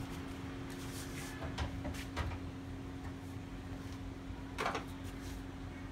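Clicks and clunks of a Honda Civic's bonnet being unlatched and raised, a few light knocks with a louder one about four and a half seconds in, over a steady low hum.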